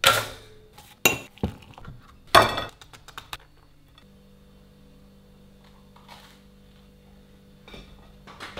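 A pop-up toaster springs up with a sharp clack, followed by several loud clinks and clatters of plates and cutlery over the next three seconds. Then a low steady hum, with a few faint clinks of cutlery on a plate near the end.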